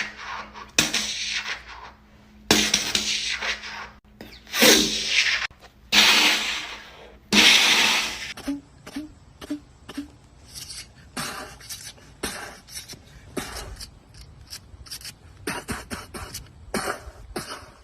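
A person imitating gunfire with their mouth. First come several loud, hissing blasts of about a second each, then a long run of short, rapid pops and clicks like automatic fire.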